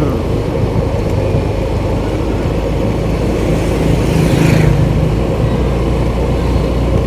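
Vehicle engine running at a steady speed under road and wind noise while riding, with a brief hissing swell of something passing about four seconds in.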